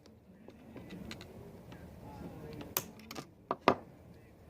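A few sharp clicks and taps, mostly in the second half, from small parts being handled during a vape coil build, over a faint murmur of the room.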